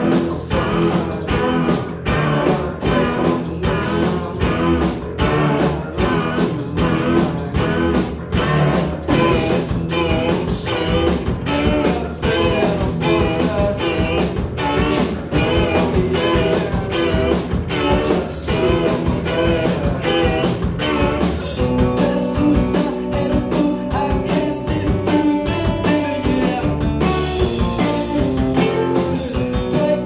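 Live rock band playing: distorted electric guitars over a steady drum beat, with keyboard. About two-thirds of the way through the drumming thins out and held chords ring on.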